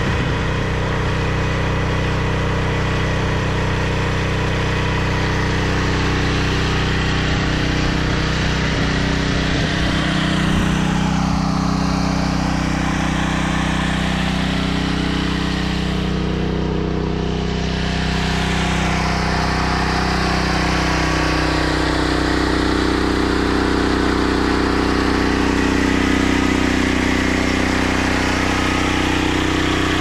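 A small engine running steadily at one constant speed, its even hum unchanged throughout.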